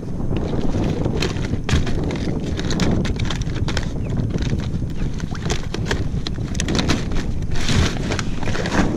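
Irregular knocks and clatter of gear being handled in the open storage hatch of a round plastic one-person skiff, over steady wind noise on the microphone.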